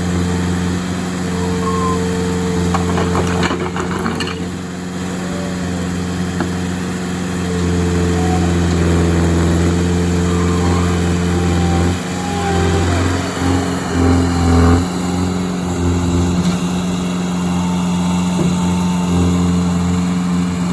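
Skid-steer loader engine running steadily, with a cluster of knocks about 3 to 4 seconds in and the engine note wavering with more knocks about 12 to 15 seconds in.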